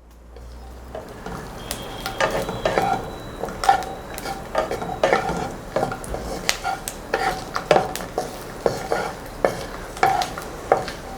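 Garlic cloves frying in sesame oil with a steady sizzle that builds over the first second or two. A spoon stirring in the pan clinks and scrapes against it about twice a second.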